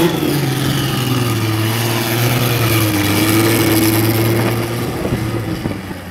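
Turbocharged VR6 engine of a tuned VW Golf Mk4 running with a steady, even engine note as the car rolls slowly past at low speed, then fading as it moves away near the end.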